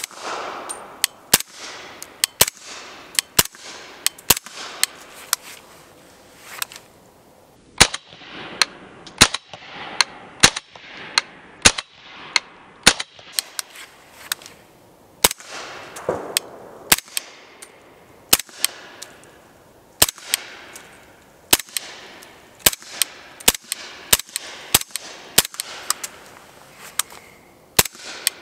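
Noveske N4 AR-pattern rifle with a Q Trash Panda titanium silencer firing 220-grain subsonic 7.62 rounds in a steady semi-automatic string, about one shot every half second to second, with two short pauses. Each suppressed shot is a sharp report of fairly low tone, followed by echoes off the valley's side walls and the rock wall behind.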